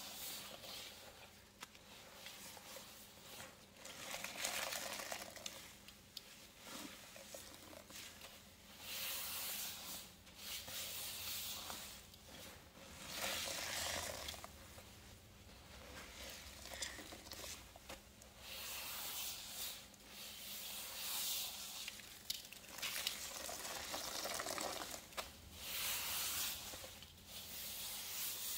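Hands squeezing a wet cleaning-powder paste soaked with Pinol and Pinalen pine cleaners: a series of squeezes, each a noisy wet squish of about a second, a few seconds apart.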